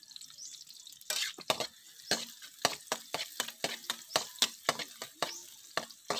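Metal spatula scraping and knocking against a steel wok, about two to three strokes a second from about a second in, stir-frying onion and garlic over a light sizzle.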